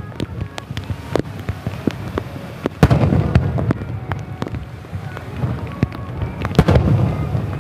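Fireworks display: two large shell bursts, about three seconds and six and a half seconds in, each followed by a rolling low rumble, with scattered crackling pops between them.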